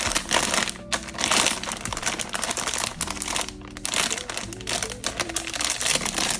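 Blind-box packaging bag crinkling and rustling in irregular bursts as it is handled and opened, with soft background music underneath.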